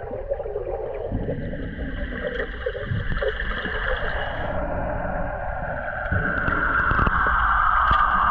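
Water noise heard underwater: a continuous muffled rushing with a low rumble, growing louder about six seconds in.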